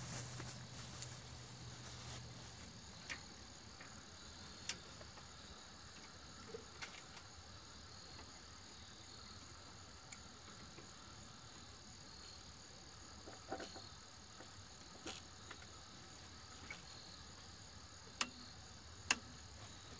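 Crickets chirping faintly and steadily in a high-pitched, repeating drone. Scattered light clicks and knocks come from hands working at an electrical box on the solar tracker pole, with two sharper clicks near the end.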